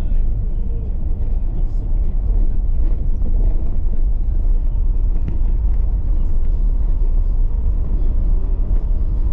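Steady low rumble of a car driving over a sandy dirt track, heard from inside the cabin, with faint scattered knocks and rattles.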